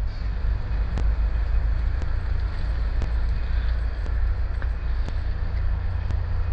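Steady low outdoor rumble, like road traffic or wind on the microphone, with faint ticks about once a second.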